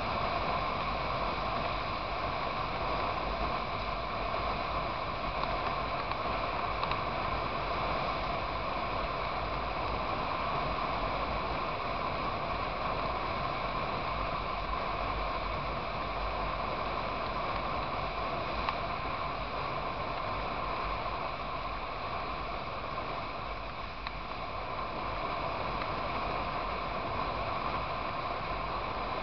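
Steady wind rush and road noise from a motorcycle cruising at highway speed, picked up by a camera mounted on the bike.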